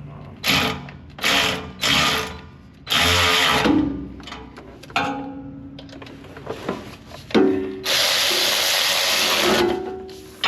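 Power tool tightening the starter mounting bolt on a big-block Chevy, run in three short bursts, then a longer one, and near the end a long steady run of about two seconds.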